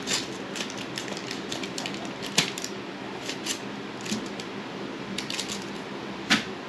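Pocket knife slitting open a paper envelope: scraping, rustling and a string of small clicks, with two sharper clicks about two and a half and six seconds in.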